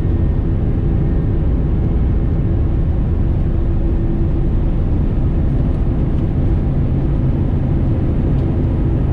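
Airbus A320neo's engines and airframe making a loud, steady rumble with a faint engine hum that shifts lower in pitch about halfway through.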